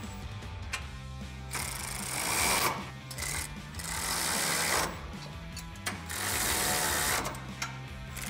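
Socket ratchet clicking in three bursts of about a second each as the brush guard's bracket bolts are tightened, over background music with a steady beat.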